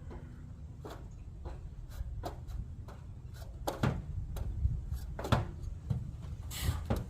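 Scattered knocks and clunks from handling and moving a box, about a dozen, with a longer scraping one near the end, over a low rumble.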